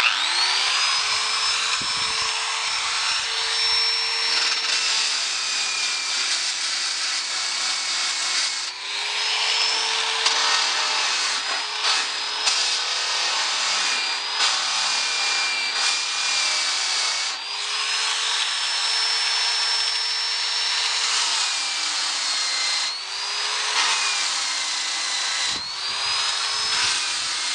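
A 3/8-inch electric drill spins a flexible abrasive bristle wheel, scrubbing the E-coat off small spots on a steel door-skin flange. The motor's whine sags in pitch and picks back up several times as the wheel is pressed in and eased off, over a steady scraping hiss.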